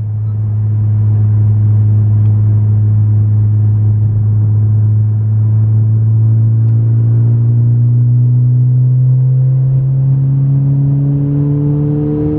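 A 2019 Honda Civic Si's turbocharged 1.5-litre four-cylinder drones steadily through a Skunk2 MegaPower exhaust, heard from inside the cabin while driving. Its pitch climbs slowly near the end as the revs rise.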